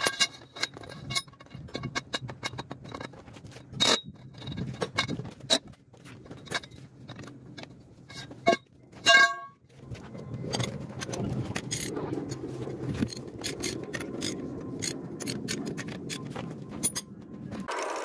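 Metal clanks and clicks of a wrench with an extension pipe working the wheel nuts of a truck wheel, with one loud ringing metal clang about nine seconds in. After that a steady noise of unclear source runs until just before the end.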